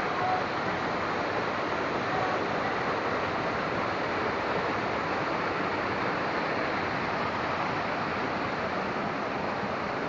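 Water rushing over a small rocky cascade into a pool: a steady, unbroken rush of white noise.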